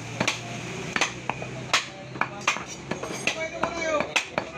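Butcher's knife chopping beef on a wooden chopping block: a run of sharp, uneven chops, about two to three a second.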